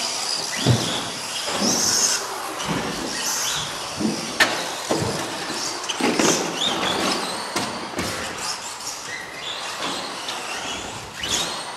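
Electric radio-controlled short-course trucks (Associated SC10 4x4) running on an off-road track, their motors whining up and down with the throttle, with several sharp knocks as they land or hit things.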